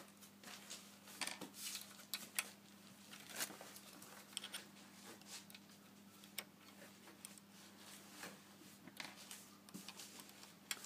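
Faint, irregular clicks and light scrapes of a hex key turning out the small screws on the rear focuser plate of a SkyWatcher Maksutov 150 telescope, over a steady low hum.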